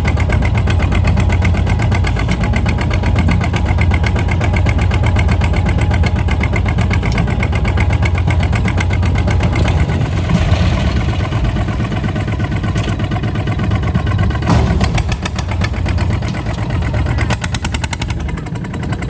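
Kubota ZT 155 DI single-cylinder diesel engine on a two-wheel walking tractor running steadily under way, with a rapid, even chugging beat. An occasional knock sounds over it.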